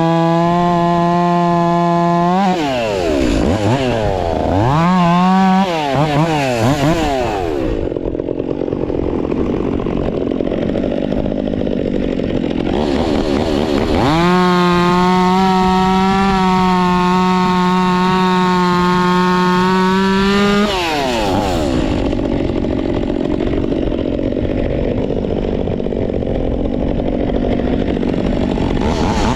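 Stihl 362 two-stroke chainsaw with an Egan Straight Shot performance muffler, held at full throttle, then blipped a few times and dropped to idle. About halfway through it is run up to full throttle again for about six seconds, drops back to idle, and revs once more at the end.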